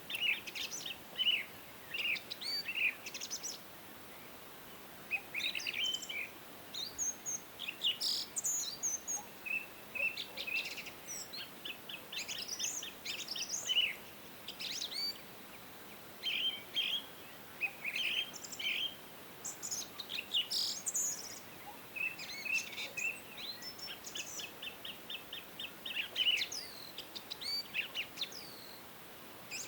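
Several songbirds chirping and singing at once, with short chirps and quick trills of repeated notes, over a faint steady hiss.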